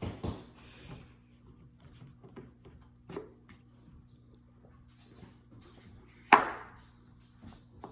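Light taps and knocks of hands and plastic moulds working kinetic sand on a tray, with one much louder sharp knock about six seconds in.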